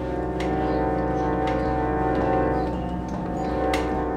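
Antique reed (pump) organ sounding a held chord, played with the knee swell pushed open to let more sound out through the swell louver. A few short knocks come through the chord.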